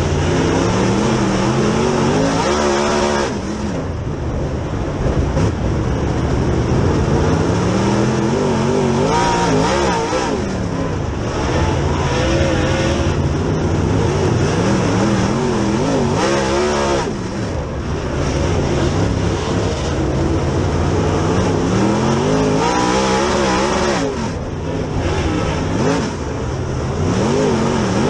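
Dirt Super Late Model's V8 engine, heard from inside the cockpit at racing speed, revving up and backing off again and again in a rise and fall every several seconds as the car laps the dirt track.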